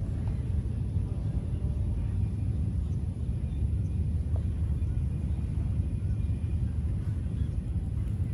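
Wind buffeting the microphone outdoors, heard as a steady low rumble that rises and falls in quick gusts.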